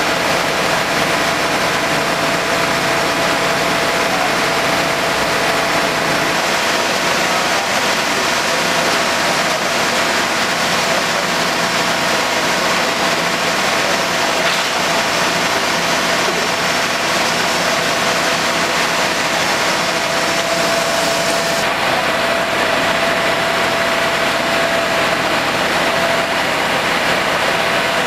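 Steady engine noise from a heavy vehicle running at idle, with a thin constant whine over an even hiss.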